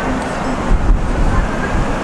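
Jet airliner engines making a low, steady rumble, swelling briefly about a second in.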